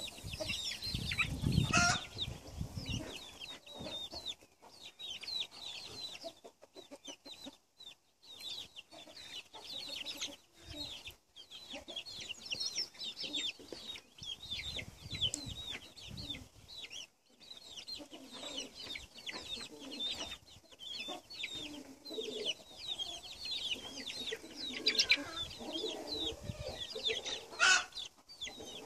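Flock of hens and young chicks: the chicks peep constantly in short high notes while the hens cluck low, more often in the second half, with one louder call near the end. A low rumble runs under the first couple of seconds.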